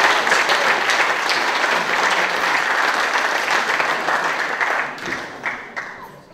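Audience applauding, the clapping thinning out to a few scattered claps and dying away near the end.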